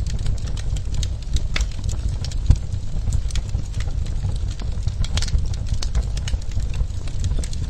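Wood fire crackling in a fireplace: a steady low rumble of burning with frequent irregular pops and snaps, one louder snap about two and a half seconds in.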